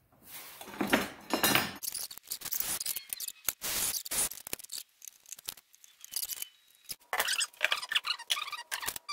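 Handling noise at a workbench: small metal parts rattling and clinking in a plastic case, with scattered clicks and knocks of tools being picked up and set down, and a run of quick clicks near the end.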